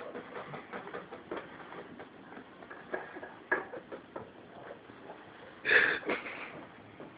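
A man asleep and breathing noisily, with one short, loud snort about six seconds in, among faint clicks and rustles.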